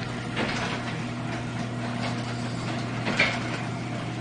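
Garage door opener motor running steadily with a constant hum as it raises the door, with two short rattles from the moving door, one about half a second in and one near the end.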